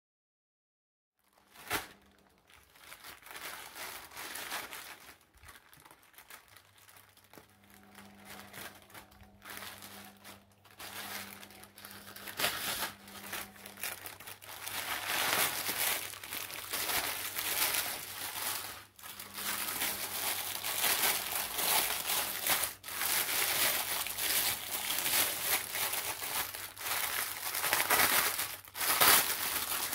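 Plastic packaging crinkling and rustling as hands open a white plastic mailer bag and handle a silicone mold inside its clear plastic wrap. It starts about a second and a half in and grows louder about halfway through.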